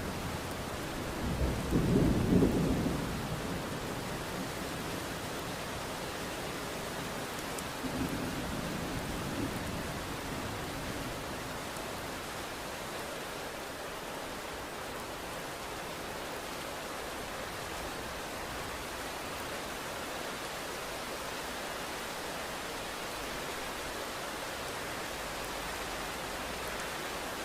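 Steady rain falling through a thunderstorm, with a loud thunderclap about two seconds in and a weaker roll of thunder around eight to ten seconds in.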